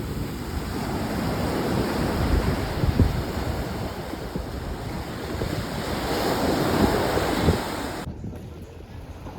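Wind buffeting the microphone over the steady wash of surf, swelling and easing in gusts; the high hiss drops out abruptly about eight seconds in.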